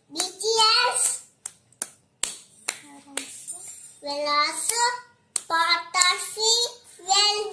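A young boy's high voice talking in a sing-song way, in phrases with short gaps, broken by several sharp clicks.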